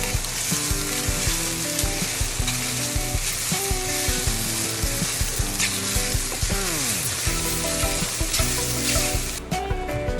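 Cubed chicken breast frying in a pan, a steady sizzle with a utensil stirring and clicking against the pan, over background music. The sizzle drops away suddenly near the end.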